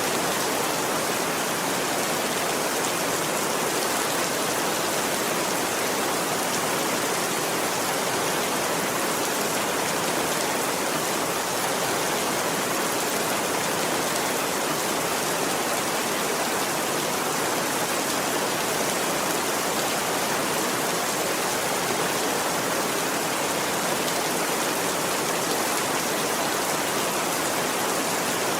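Steady rain falling, an even, unbroken hiss of drops with no thunder and no change in strength.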